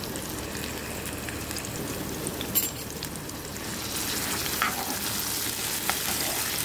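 Chopped onion and green capsicum sizzling in hot oil in a metal pan as a spatula stirs them, with a few sharp taps and scrapes of the spatula on the pan. The sizzle grows louder about four seconds in.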